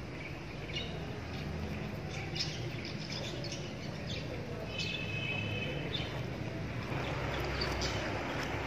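A wooden spoon works tomato purée through a stainless mesh strainer, making soft wet scraping, over steady low background noise. Faint bird chirps come now and then, the clearest about halfway through.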